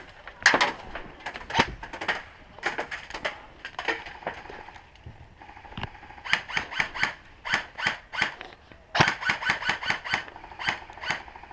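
Airsoft guns firing: scattered sharp shots, then rapid strings of about five shots a second twice in the second half.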